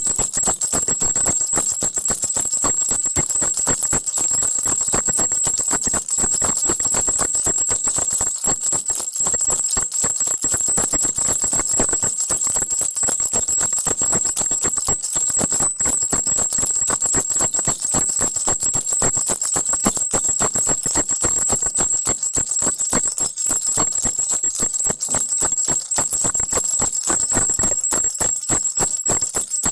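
Crocodile-shaped baby rattle shaken continuously: a dense, rapid rattling with a steady high jingle over it.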